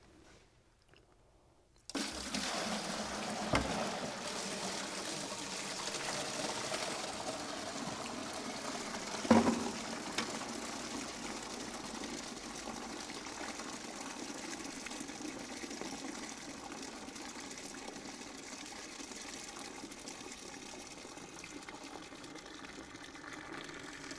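Water poured from a bucket into a clear container and draining down through a Waterguard-type drain tile and out the bottom, a steady running-water sound that starts about two seconds in and slowly fades. A couple of knocks, the louder one about nine seconds in.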